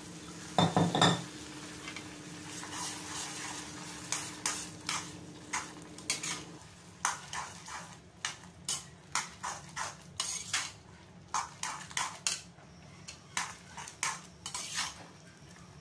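A perforated metal spatula stirring chickpea curry in a kadai, clinking and scraping against the pan about once or twice a second. Under it is a faint sizzle of frying, and there is a louder knock cluster about a second in.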